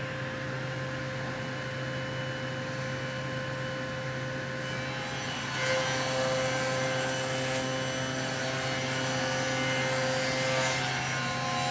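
Woodworking machine running steadily with a low hum and a steady tone. A little over halfway through it gets louder and noisier, as when the cutter starts taking wood to cut a slot or rebate.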